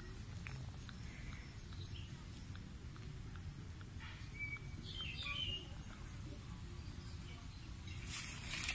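A few short, high chirping calls about halfway through, over a steady low rumble, with a brief hiss near the end.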